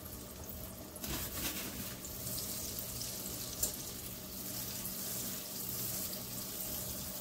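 Butter melting and sizzling in hot olive oil in a stainless steel pan, a steady hiss that grows livelier about a second in, with a few light clicks of a wire whisk against the pan.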